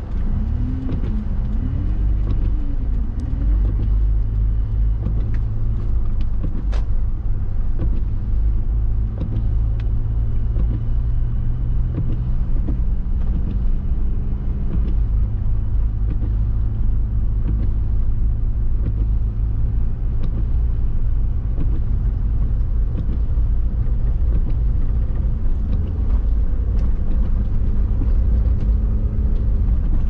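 Heard from inside the cabin of a 2005 Subaru Forester X on the move: the 2.5-litre flat-four engine runs under a heavy low road and tyre rumble from its snow tyres. The engine pitch rises and falls a little as the car speeds up and slows.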